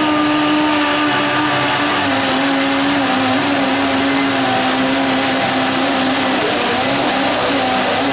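Power drill reaming rivet holes in a steel ship's hull plate, its motor running steadily under load with a slight dip in pitch early on.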